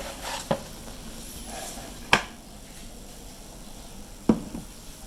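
Three short sharp clinks, a couple of seconds apart, as a small pot of just-boiled alcohol is handled.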